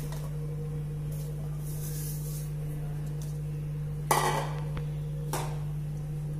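Kitchenware being handled at a stove: a few light taps and two sharper knocks, about four and five seconds in, over a steady low hum.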